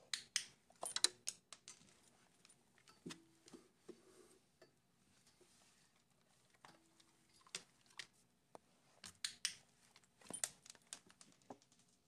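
Irregular sharp clicks and light plastic taps in small clusters, from a clicker-training session with a dog pressing the button of a wireless doorbell transmitter.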